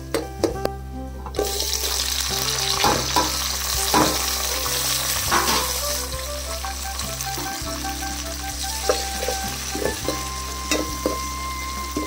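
Onions sizzling in hot oil in an aluminium pot while a spoon stirs, clinking and scraping against the metal. About a second and a half in, the sizzle turns much louder and hissier as chopped tomatoes, green chillies and coriander go into the oil.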